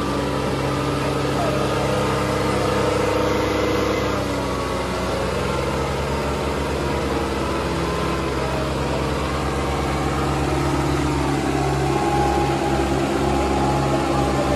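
Two diesel tractor engines, a Kubota and a New Holland, running hard at full throttle under heavy load as they pull against each other in a tug-of-war. The engine note is steady, shifting slightly about four to five seconds in.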